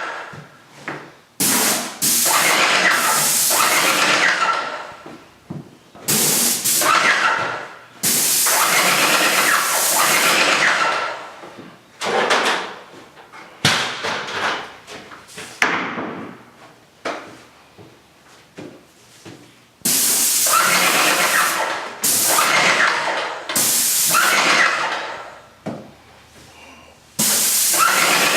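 Paint sprayer spraying Kilz primer in repeated hissing bursts of a second to a few seconds each, each starting sharply as the trigger is pulled and fading as it is released.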